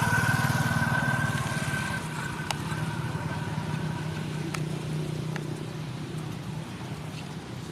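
A motor vehicle's engine running, loudest at the start and slowly fading.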